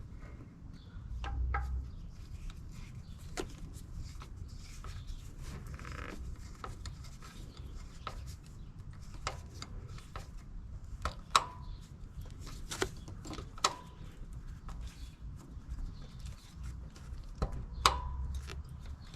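Hand tools working on a radiator hose and its clamp: scattered light clicks and scrapes, with three short metallic clinks that ring briefly, as the hose is pushed onto the thermostat housing and the clamp is tightened.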